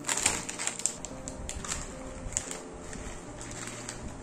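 Crisp fried namkeen sticks crunching between the teeth in quick irregular clicks, with the plastic snack packet crinkling, busiest in the first second.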